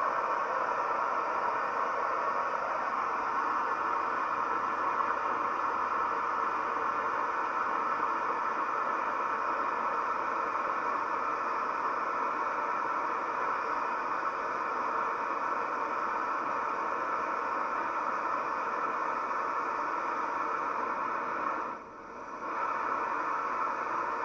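Camp Chef Mountain Series Stryker gas-canister stove burner running at full flame, a steady, loud roaring hiss as it heats its pot of water. The roar dips for about a second near the end, then comes back.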